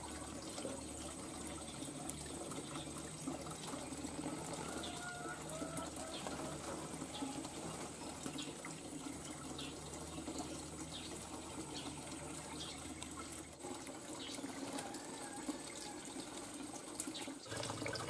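Steady trickling water with sparse, short, faint chirps from small aviary birds. A low hum underneath stops about three-quarters of the way through.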